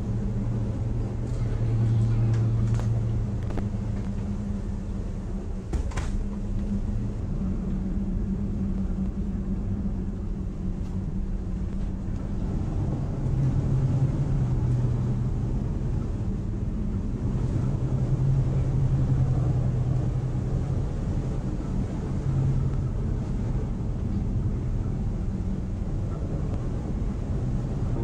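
Steady low rumble and drone of a bulk carrier underway in heavy seas, the hum swelling and shifting up in pitch about halfway through, with a couple of faint clicks in the first few seconds.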